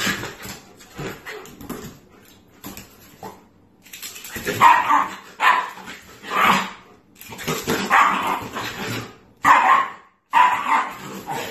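Shiba Inu barking in play, a run of about seven short barks roughly a second apart starting about four seconds in, after a few quieter seconds.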